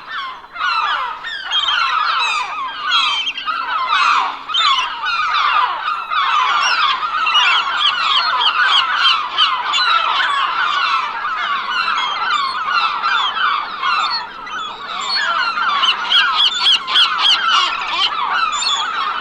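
A large flock of gulls calling all at once, a dense, unbroken chorus of many overlapping short squawks and cries.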